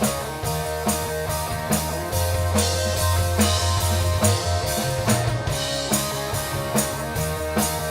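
Live rock band playing: a drum kit keeps a steady beat under sustained bass and electric guitar.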